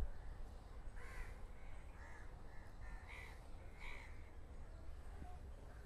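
A bird calling repeatedly, about half a dozen short calls over a few seconds, over a steady low background rumble.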